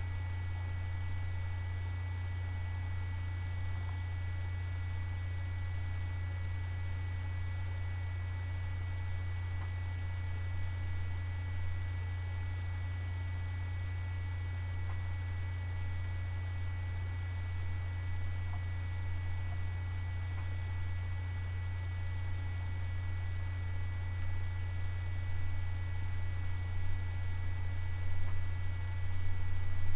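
Steady low electrical mains hum, with a fainter high steady tone above it.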